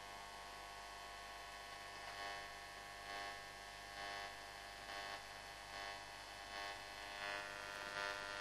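Tube radio's loudspeaker putting out a faint steady mains hum with many overtones while no station is tuned in, with faint soft swells about once a second.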